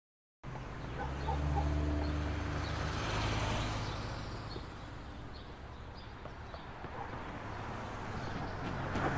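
Street traffic: cars passing with engine and tyre noise. One swells and fades over the first few seconds, and another grows louder near the end. Sound cuts in suddenly about half a second in.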